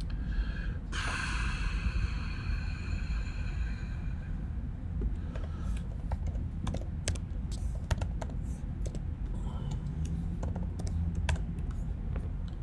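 Typing on a computer keyboard: scattered, irregular keystroke clicks through the second half, over a steady low room hum. Near the start a high ringing sound lasts about three seconds and fades out.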